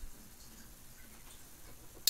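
Quiet room tone with a few faint light ticks.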